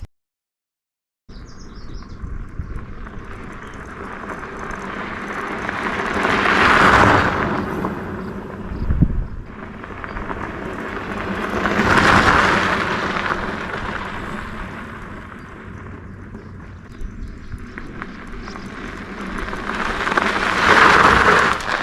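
Rushing outdoor noise picked up by an action camera's microphone, starting after a second of silence and swelling up and fading away three times, with a short dull thump about nine seconds in.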